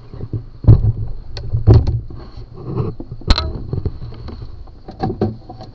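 Several sharp knocks and clanks, a second or so apart, over a low steady hum.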